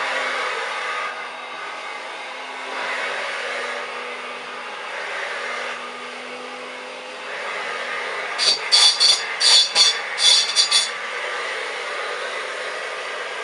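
1930s Hoover Dustette 100 hand vacuum cleaner running steadily, with a low motor hum under the rush of air. Just past halfway comes a quick run of about eight sharp rattling clicks.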